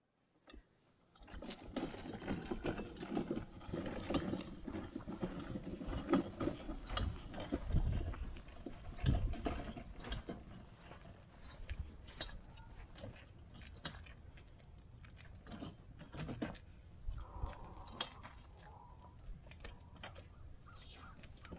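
Gorilla Cart poly dump cart being pulled along, its plastic bed and steel frame rattling and clicking with many sharp knocks as its wheels roll over concrete. The rattling is loudest in the first half.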